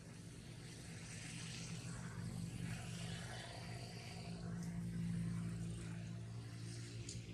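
A motor engine humming steadily, swelling to its loudest about five seconds in and easing off a little near the end.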